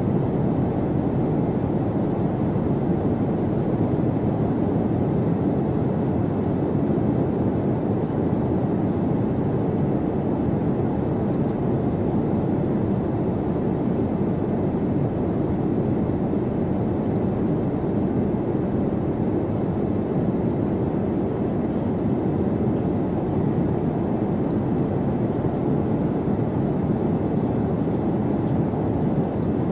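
Steady, even low rumbling noise with no pitch, rhythm or change, used as the masking background of a subliminal track.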